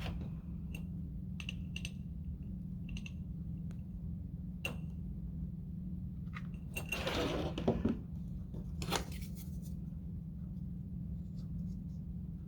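Light clinks and taps of a glass mason jar and a wooden stick being handled on a tabletop, over a steady low hum. A brief scuffing noise about seven seconds in.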